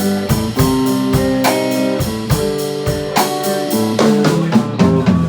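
Instrumental intro of a song: guitar notes and chords plucked about twice a second.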